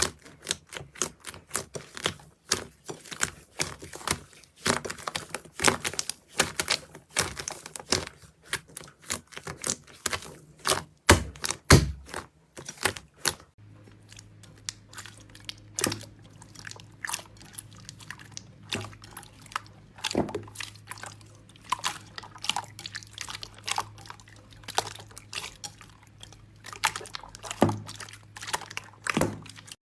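Slime being squeezed and pressed, making rapid wet clicks and pops. About halfway through the clicks thin out to slower, separate squelches over a low steady hum.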